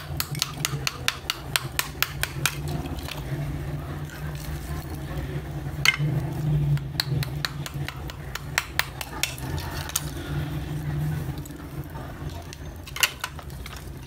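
Small hammer tapping on the edge of a slab of roasted multani mitti (fuller's earth clay), splitting off its layers: a quick run of light sharp knocks at first, then sparser taps, one louder near the end, over a steady low hum.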